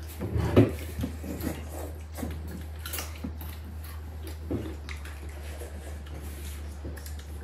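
Kitchen work sounds: water splashing, with small irregular knocks and clinks of pots and utensils and one louder knock about half a second in, over a steady low hum.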